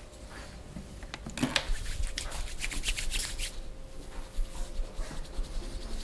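Hands massaging, rubbing and tapping over skin and hair close to the microphone, with a quick run of scratchy strokes in the middle and lighter rubbing either side.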